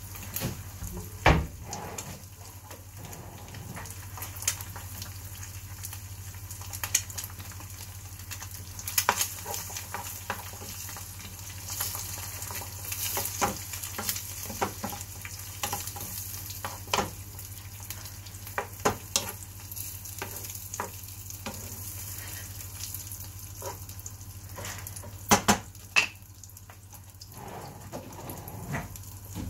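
Food sizzling in a frying pan as it is stirred with a wooden spatula, which knocks and scrapes against the pan again and again; the sharpest knocks come about a second in and near the end.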